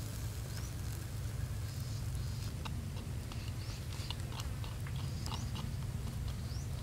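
Pork ribs roasting on stick skewers over hot embers: scattered sharp crackles and pops from fat sizzling and the coals, over a steady low rumble. A few short high rising chirps come through now and then.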